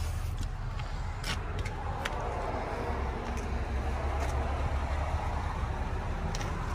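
Steady low rumble of outdoor vehicle noise, with a few brief ticks.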